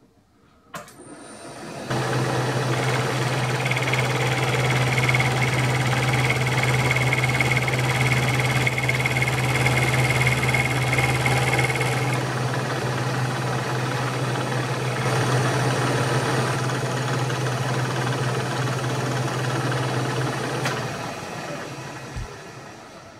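A click, then about two seconds in a milling machine's spindle motor starts and runs steadily while an end mill cuts flats on an aluminium end cap, with a high whine during the first half of the cut. Near the end the machine is switched off and winds down.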